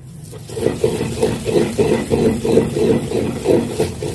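Wooden pestle grinding a wet paste of almonds, poppy seeds, fennel and cardamom in a glazed bowl for sardai: a rhythmic rubbing of about three strokes a second.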